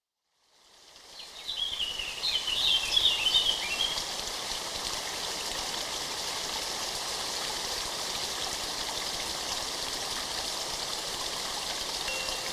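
Steady rush of flowing water, like a stream, fading in over the first two seconds, with a few high chirps about two to four seconds in.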